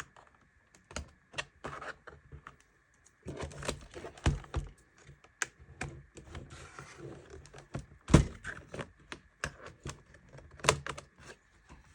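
Plastic pry tool working around the plastic bottom cover of an HP EliteBook 640 G3 laptop, with irregular clicks and snaps as the cover's clips pop loose. The sharpest snap comes about eight seconds in.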